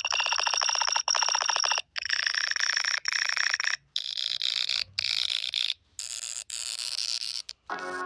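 A run of short electronic sound-effect clips, about one a second, each cut off abruptly by a brief silent gap. The first few are rapid, alarm-like pulsing beeps; the later ones are hissier, and near the end a clip of steady held tones begins.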